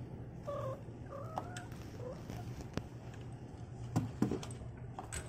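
Cat giving a few short chirps in the first two seconds, one rising in pitch. Later come several sharp knocks and bumps, the loudest about four seconds in.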